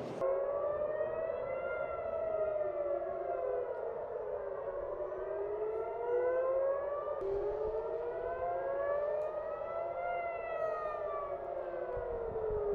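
Civil defence air-raid sirens wailing: more than one siren out of step, each rising and falling in slow sweeps a few seconds long. This is the rising-and-falling alert that warns of incoming rocket fire.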